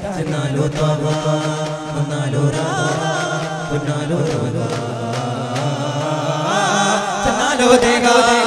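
Daff muttu group singing an Islamic devotional song in unison, holding long wavering notes, with daff frame drums struck in rhythm underneath.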